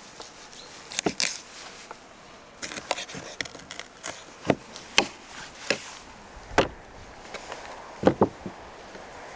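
Knife cutting and jointing a raw lamb carcass on a wooden cutting board: irregular sharp knocks and taps of the blade and meat against the board. A heavier thump comes about two-thirds of the way in and a quick double knock near the end.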